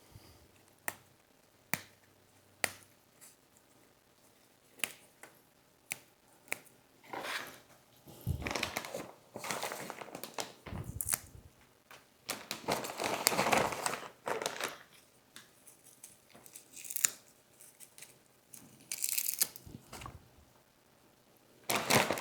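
Lettuce leaves being torn up by hand and dropped into a bowl: several bursts of tearing and crinkling, with scattered light clicks and taps before them.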